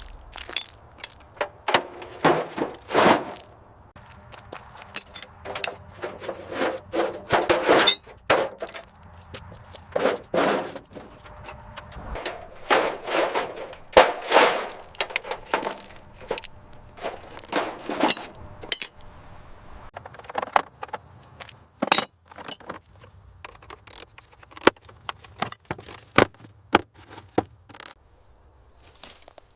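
Irregular knocks, clinks and short scrapes of metal parts being handled and worked on, some sharp and ringing.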